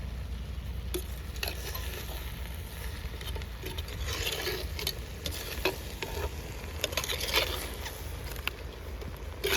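Goat intestines frying and sizzling in a pot while a ladle stirs them, with scattered clicks and scraping swishes of the ladle against the pot.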